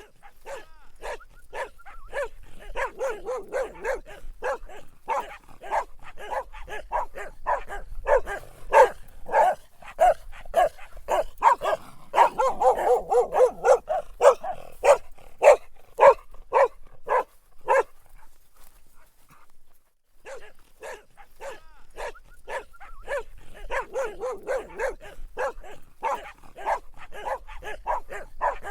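A dog barking in a fast, steady string of short barks, about three a second. The barking stops for about two seconds two-thirds of the way through, then starts again.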